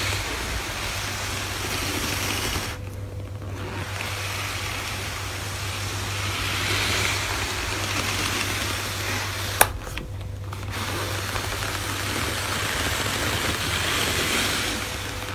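Flame point Siamese cat purring loudly close to the microphone, in slow swells. It stops briefly twice, about three seconds and ten seconds in, with a sharp click just before the second stop.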